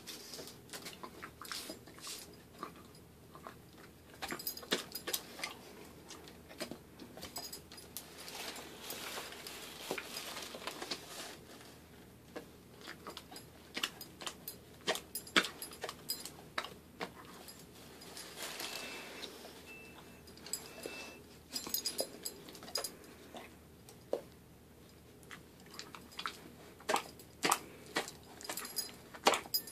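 German shepherd chewing raw bacon strips, with runs of sharp, wet smacking clicks from its jaws.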